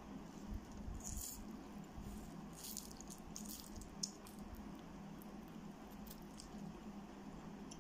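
Close-miked eating sounds: instant ramen noodles slurped and chewed, with short wet smacking noises and a sharp click about four seconds in.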